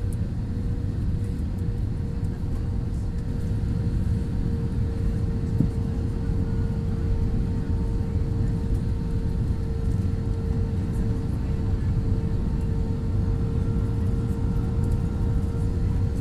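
Steady cabin noise of an Airbus A320 in flight on approach, flaps extended: a continuous low rumble of engines and airflow with a constant hum running through it.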